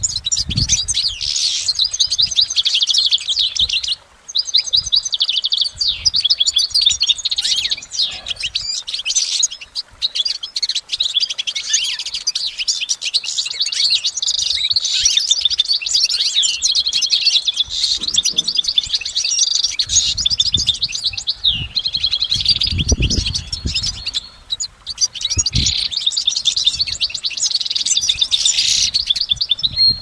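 European goldfinch singing a long, fast, nearly unbroken song of high twittering trills and chirps, with only a few brief pauses.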